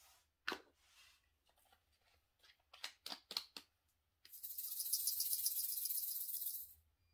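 Diamond-painting drills rattling in a small plastic container shaken quickly for about two and a half seconds, after a few light plastic clicks.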